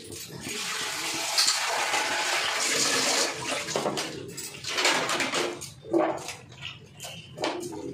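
Water running with a rushing sound: one long stretch of about four seconds, then several shorter surges.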